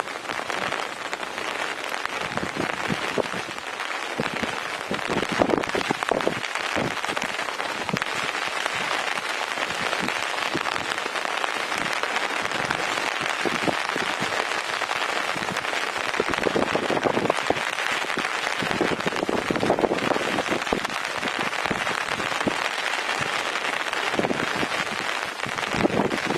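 Steady rain falling, with many close, irregular drops striking the surface.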